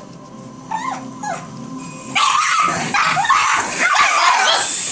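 Pugs yelping over the steady whine of a small toy helicopter's motor, then, about two seconds in, breaking into loud, continuous excited barking and yipping.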